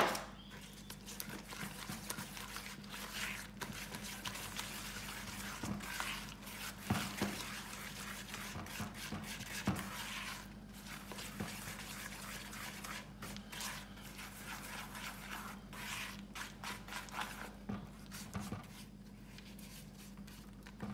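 Cookie dough being mixed by hand in a plastic bowl, an egg being worked into creamed butter and sugar: irregular soft squishing and scraping, with a sharp knock right at the start.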